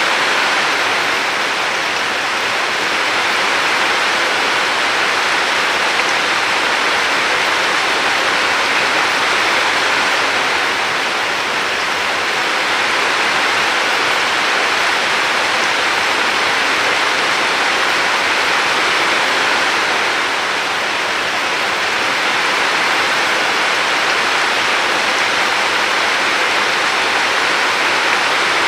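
Steady rushing water of a river: a dense, even hiss that eases and swells slightly a few times.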